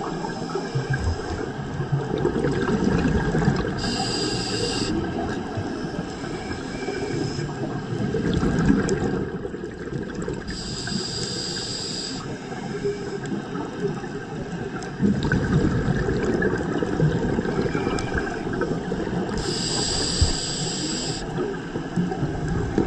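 Scuba regulator breathing underwater, heard inside a camera housing: a rumbling, bubbling noise throughout, broken three times by a hiss of a second or two, roughly every seven to nine seconds.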